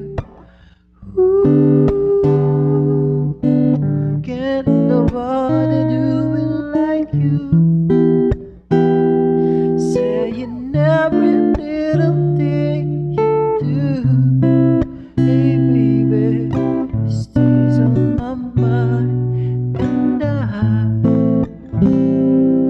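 A man singing a song while strumming an acoustic guitar, recorded through a BM-800 condenser microphone for a test. There is a short break in the playing about a second in.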